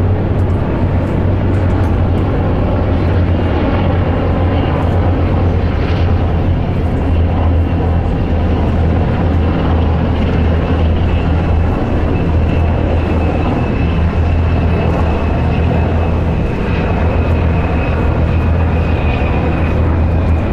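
Navy H-60 Seahawk helicopters flying past, a steady low rotor drone with a thin high turbine whine that becomes audible about halfway through.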